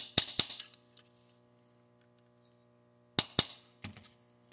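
Small hammer tapping a roll pin punch to set the selector lever's roll pin in an AR-15 lower receiver: a few sharp metallic taps in quick succession at the start, then, after a pause, two more taps and a softer, duller knock.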